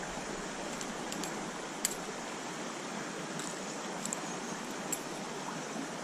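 Stream water rushing steadily, with a few light, sharp clicks scattered through it, the sharpest a little under two seconds in.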